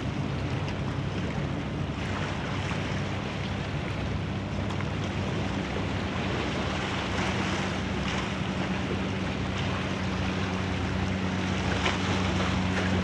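Wind buffeting the microphone over the wash of water, with the steady low hum of a boat engine running underneath.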